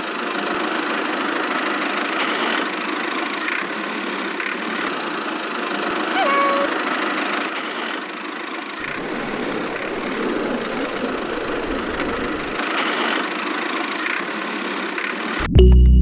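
A small motor running steadily, with a brief rising tone a little past the middle. Music with a steady beat starts just before the end.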